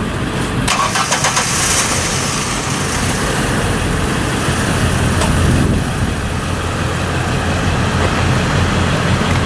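1994 Ford Ranger's 2.3-litre four-cylinder engine being started, a quick rapid cranking about a second in, then running steadily at idle.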